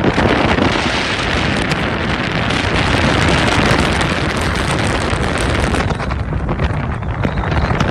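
Blizzard wind blowing hard and buffeting the microphone: a loud, steady rush with a low rumble beneath, easing slightly about six seconds in.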